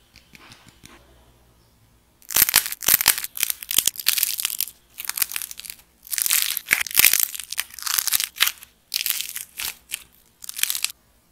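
A dried clay macaron with a painted shell being squeezed and crushed by hand: after a couple of quiet seconds of faint handling clicks, dense crackling and crunching comes in repeated bursts with short pauses, and it stops shortly before the end.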